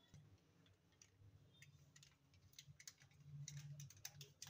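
Near silence with faint, scattered clicks of scissors snipping open a small plastic packet of powdered ice cream mix. A faint low hum comes in over the last second or so.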